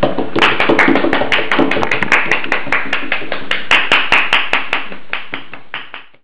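Hand clapping in an even beat, about five claps a second, fading out near the end.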